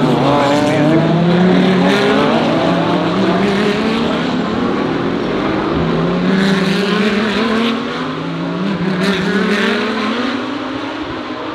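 GT3 race car engines running hard under acceleration, their pitch rising over several seconds, falling back about halfway through and rising again.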